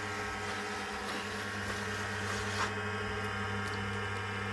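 Electric potter's wheel motor running with a steady hum as the wheel turns a clay bowl being shaped at its base.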